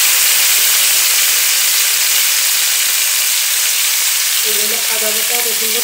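Beef liver cubes with chopped onion and garlic sizzling steadily in hot soybean oil in a large metal karai.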